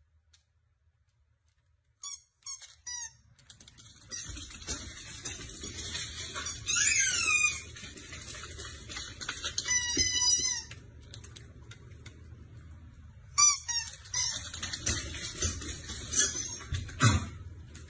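A husky's high-pitched whines and yips, several of them falling in pitch, over a steady hiss, with a few short squeaks about two seconds in.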